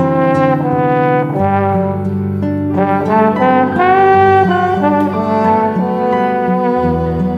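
Slide trombone playing a melody over a recorded backing track, a string of separate notes moving up and down over steady low accompaniment.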